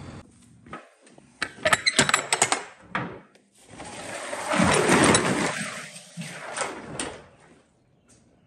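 Box truck's rear roll-up cargo door being unlatched with a run of sharp metal clacks, then rolled open with a long rattling rumble that swells and dies away.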